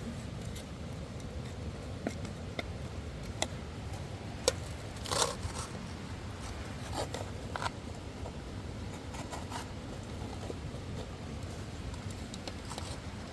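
Scattered small clicks and brief scrapes of things being handled, the loudest a sharp click about four and a half seconds in followed by a short scrape, over a steady low rumble.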